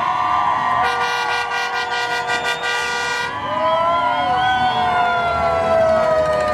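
Several fire-truck sirens wailing over one another, their pitches sliding up and down, with a long air-horn blast lasting about two and a half seconds from about a second in. In the second half one siren's pitch falls slowly.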